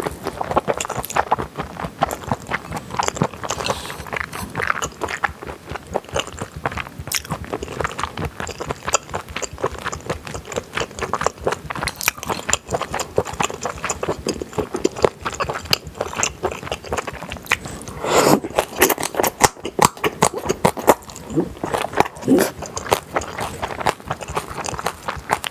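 Close-miked wet chewing and lip smacking from eating soy-marinated seafood with rice: a dense run of small clicks and squelches, with a spoon scraping now and then.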